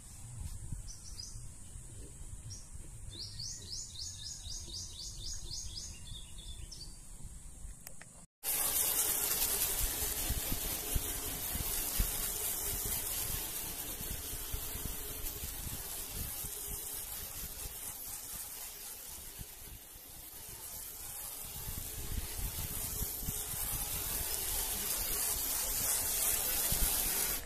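Outdoor ambience of birds chirping over a low rumble, including a quick run of chirps; after a sudden cut, a louder steady rushing hiss takes over.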